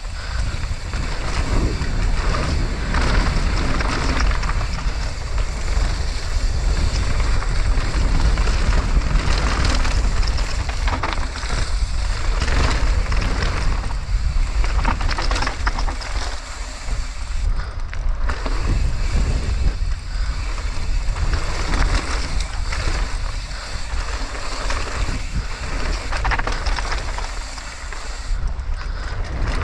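Mountain bike ridden down a wet trail, heard from a helmet or bike-mounted action camera: loud wind buffeting the microphone and a rushing rumble, with irregular knocks and rattles from the bike over rough ground.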